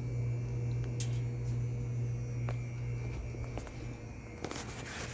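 Compressor of a vintage RCA Whirlpool chest freezer (model ELH-16S) running with a steady low hum, easing slightly a little past halfway, with a few faint clicks.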